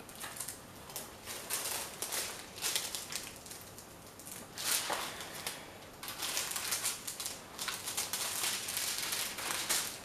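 Hands smoothing and pressing a plastic-covered diamond painting canvas flat on a table: uneven rustling and crinkling with short pauses between.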